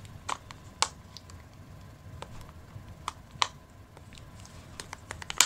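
Scattered plastic clicks and crinkles as a marker is worked out of its blister packaging, about a dozen sharp ticks with the loudest snap near the end.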